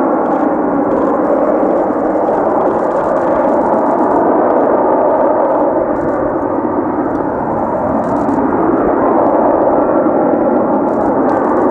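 A Lockheed Martin F-35B hovering in short-takeoff/vertical-landing mode. Its F135 jet engine and shaft-driven lift fan give a loud, steady, droning jet noise with a dull, muffled top.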